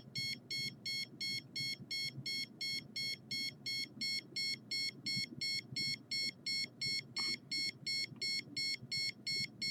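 Handheld microwave (RF) detector giving its alarm: short, high-pitched electronic beeps repeating evenly at about three a second. It is set off while a hand touches it, which the owner takes for microwave signals from her body.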